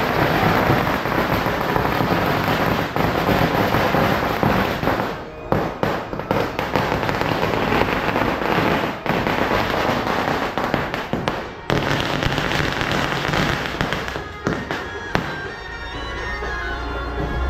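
Firecrackers going off in rapid, continuous crackling for about fifteen seconds, leaving smoke in the street. Near the end the crackling dies down and music with a reedy, horn-like tone begins.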